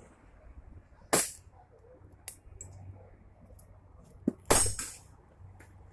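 Airsoft pistol fired in single shots, sharp cracks at uneven spacing: the loudest about a second in, a lighter one near two seconds, then a close pair near four and a half seconds.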